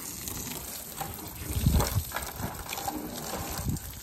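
A stream of water splashing against the side of a white SUV and its tyre and onto brick paving, with a louder splash about two seconds in.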